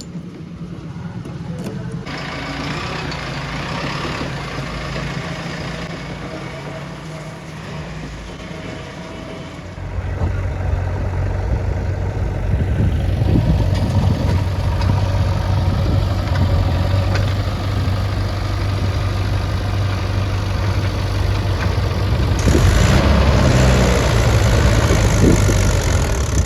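Diesel engine of heavy earth-moving machinery running steadily, getting clearly louder about ten seconds in and louder again near the end.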